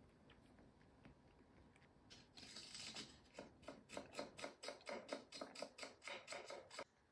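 Iced coffee stirred in a tall glass with a metal straw: ice rattling and clinking against the glass, first a brief rattle, then a quick even run of about four strokes a second that stops near the end.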